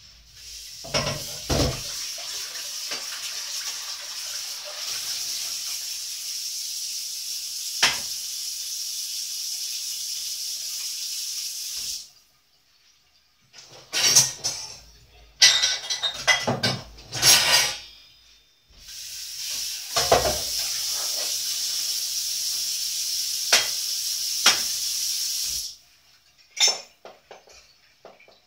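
Kitchen tap running into a pot for about eleven seconds and then shut off, followed by a few seconds of pots and dishes clattering. The tap then runs again for about six seconds and is shut off, followed by a couple of clinks.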